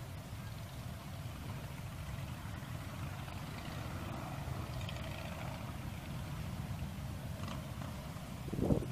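Wind buffeting the microphone, a steady low rumble that surges in a louder gust near the end.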